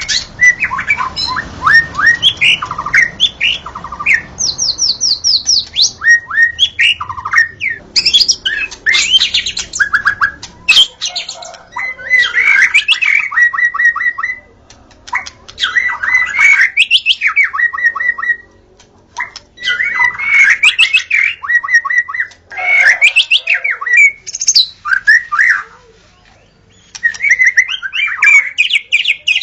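White-rumped shama (murai batu) in full song: loud, fast, varied phrases of whistles and rapid chattering notes, coming in bursts of several seconds separated by short pauses.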